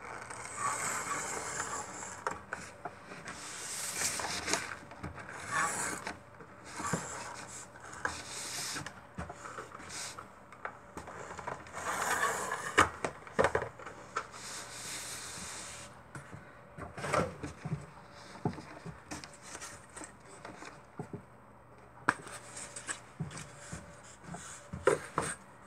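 ATG tape gun drawn along mat board, laying strips of transfer tape: several rasping passes a second or two long, with clicks and knocks from handling the mat board between them.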